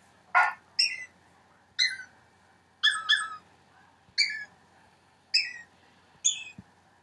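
Dog piano app playing short, high-pitched dog-bark notes one at a time, about eight of them at roughly one a second, with two close together about three seconds in.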